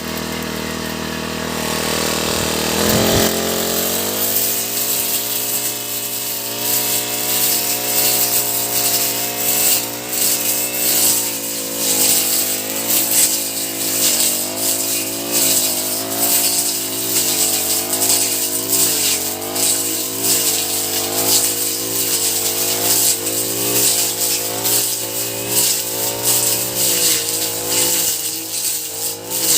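Honda four-stroke brush cutter engine idling, then throttled up about three seconds in and running at high speed, its pitch wavering slightly as the throttle varies.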